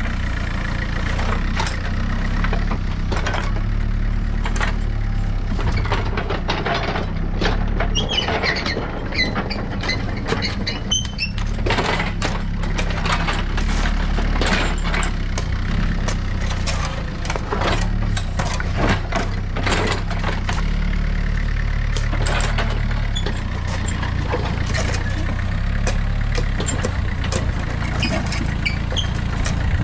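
John Deere 50ZTS compact excavator's diesel engine running steadily, with frequent clanks and knocks from the machine working dirt.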